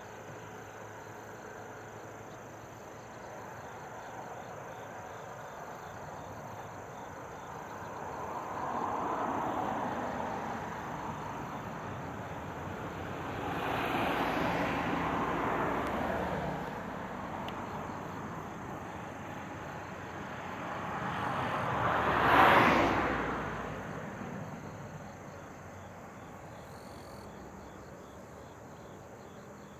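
Vehicles passing by outdoors: three swells of rushing noise that rise and fade, the loudest peaking sharply about two-thirds of the way through, over faint steady insect chirping.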